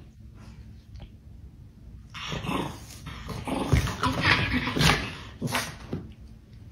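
Small Chihuahua-type dog growling and barking at a larger dog in a string of short bursts, starting about two seconds in.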